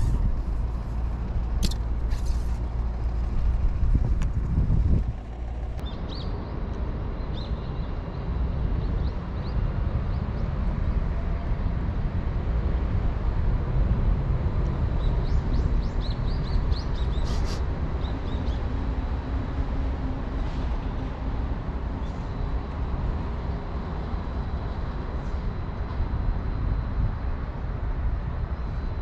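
Steady low outdoor rumble, with a few small birds chirping briefly about six seconds in and again around the middle.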